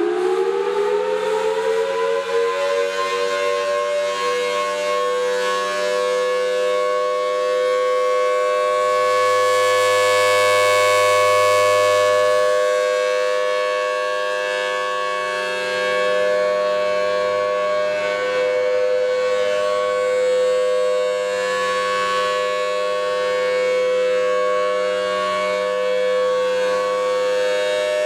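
Federal Signal Thunderbolt 1000T dual-tone outdoor warning siren sounding its steady alert for a tornado drill. It finishes winding up to pitch over the first few seconds, then holds a steady chord, swelling louder around ten seconds in and easing back.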